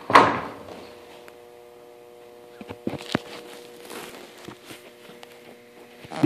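Scattered light knocks and footsteps in a workshop over a steady electrical hum. A short, loud rustling knock comes right at the start, and a few sharper clicks follow about three seconds in.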